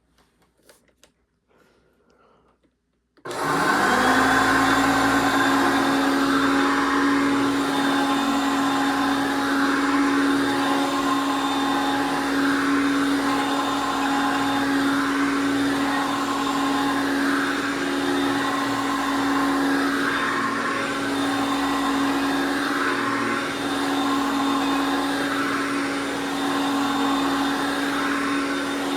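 1979 Hoover Concept One U4205 upright vacuum cleaner switched on about three seconds in. Its motor spins up within a second to a steady whine and keeps running. A few faint clicks come before it starts.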